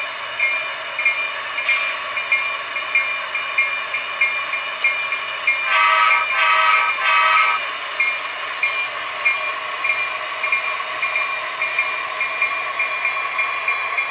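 A model B&O SD-9 diesel locomotive's on-board sound system, with a steady engine drone and a bright ringing tick about twice a second like a locomotive bell. About six seconds in, three short horn blasts sound, the loudest part.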